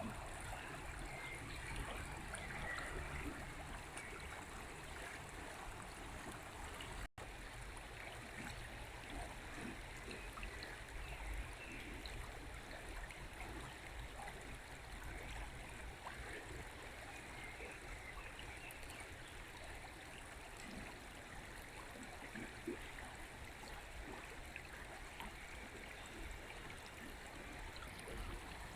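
River water flowing steadily over stones, a continuous babbling rush. The sound cuts out for an instant about seven seconds in.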